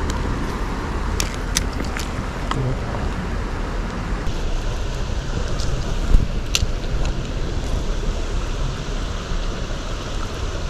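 Steady rush of flowing river water with wind rumbling on the microphone, and a few sharp clicks from the spinning reel being handled, the loudest about six seconds in.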